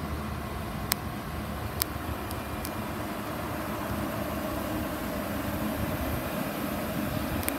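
Steady low hum of a running vehicle engine, with a few faint clicks in the first three seconds.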